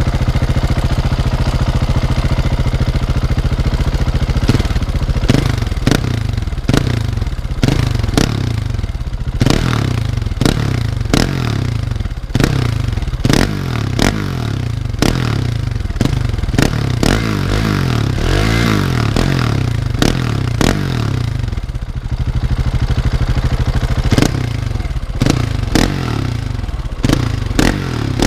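Husqvarna 701's single-cylinder engine barking through an internally modified Akrapovic exhaust: it idles steadily for about four seconds, then is blipped again and again, each blip a sharp crack that falls back to idle. There is a short steady idle about three quarters of the way through, then more blips.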